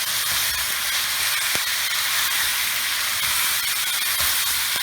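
Pasta noodles sizzling steadily in a very hot wok of oil and soy sauce, with a few light clicks as they are stirred.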